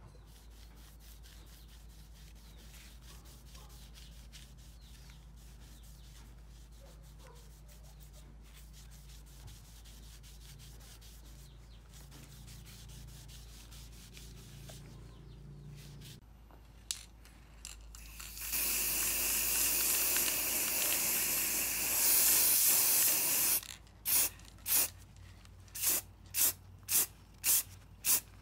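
A cloth rubbing stain onto a wooden sword handle makes a faint, steady rubbing for the first half. Then an aerosol spray can hisses in one long spray of about five seconds, followed by a run of short spray bursts, coating the handle in a glossy finish.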